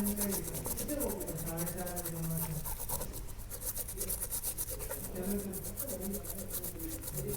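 Rapid scrubbing strokes as a phone circuit board is rubbed clean with thinner around a freshly soldered charging jack, washing off the flux and rosin.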